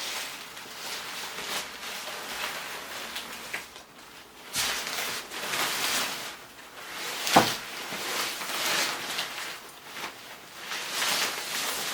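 Rustling and handling of a pop-up green screen and its packaging as it is worked at to get it open, with uneven scraping and one sharp knock about seven seconds in.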